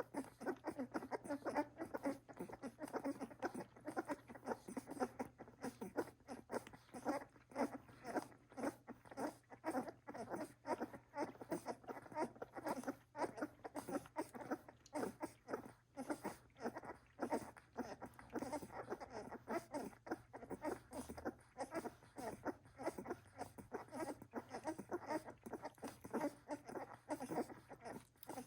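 A litter of 17-day-old Welsh Springer Spaniel puppies nursing from their mother: rapid, irregular wet suckling and smacking, several sucks a second, from many mouths at once.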